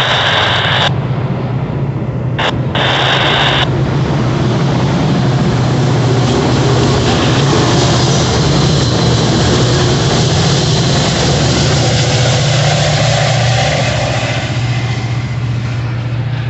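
Metra commuter train moving along the platform: double-deck coaches rumbling past, then the diesel locomotive pushing at the rear goes by close with a loud, steady engine drone.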